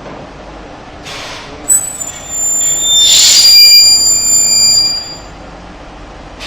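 Spin friction welding machine running a weld cycle on a plastic water filter housing: a short air hiss and a click, then a loud high whine from the spinning head with a rush of friction noise in the middle, lasting about three seconds before cutting off.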